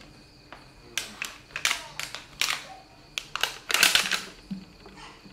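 Clear plastic bag crinkling and rustling in short irregular crackles as a baby monkey paws and grabs at it, busiest about four seconds in.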